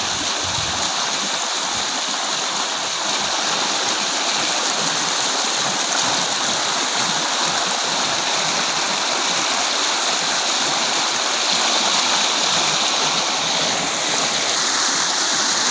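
Fast, muddy rainwater torrent rushing and churning through a bamboo-framed fishing net: a steady, loud rush of water.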